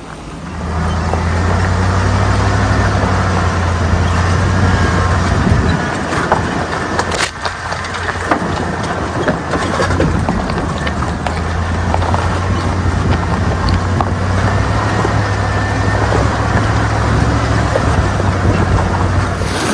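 Vehicle driving on the road: steady low engine drone with tyre and road noise, the drone easing off for a few seconds around the middle before it returns.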